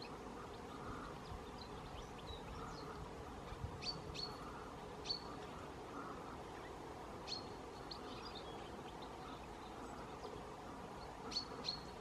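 European goldfinches calling: short, sharp, high chips scattered through, with fainter twittering between them and a quick pair of calls near the end. A steady low hum runs underneath.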